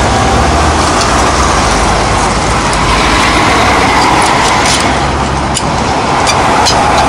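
Steady road-traffic noise with several short metallic clicks, mostly in the second half, from a cross wheel wrench working the wheel nuts of a van.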